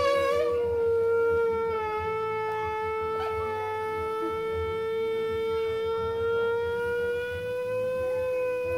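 A closed electric waffle maker with batter cooking inside, making the long, steady, pitched 'farting' tone as steam forces its way out through the batter at the seam between the plates. The pitch wavers slightly.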